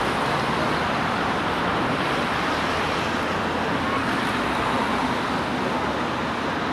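Steady traffic noise from a line of team cars of a cycling race caravan driving past close by, one after another.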